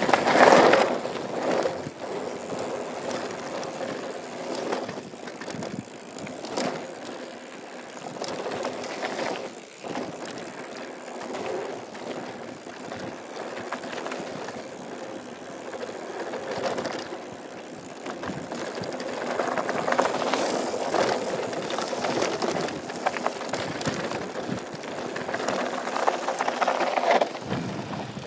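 Mountain bike riding down a dirt trail: tyres rolling over dirt and the bike rattling over bumps. A steady noise swells and fades with the speed, with scattered sharp clicks and knocks; it is loudest at the very start and again for several seconds near the end.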